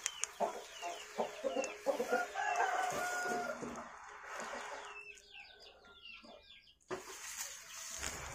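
Chicken clucking and squawking in a run of short, pitched calls that slide in pitch, louder in the first half. Quieter, higher chirps follow near the middle.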